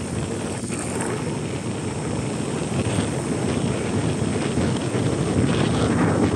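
Yamaha NMAX scooter riding along at a steady speed: its single-cylinder engine running under a steady rush of wind on the microphone.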